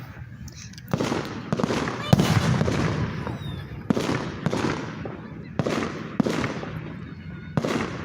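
Fireworks going off: a string of sharp bangs, irregularly spaced, some close together, each trailing off in an echo.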